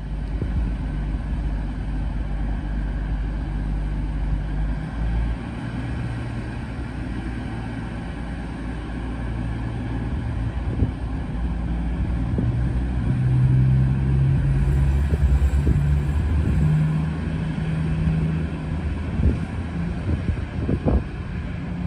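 Class 222 Meridian diesel multiple unit pulling out and accelerating away, its underfloor diesel engines running with a low drone whose pitch steps up a few times and grows loudest about two-thirds of the way through, then eases off. A few short knocks near the end.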